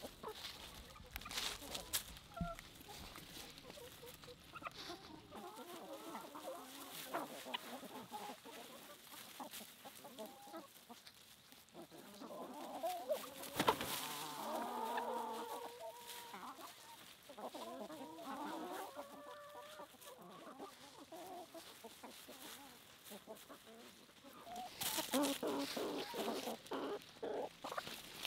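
A flock of chickens clucking and calling, with scattered short clicks and taps, including one sharp one about halfway through and a busy run of them near the end.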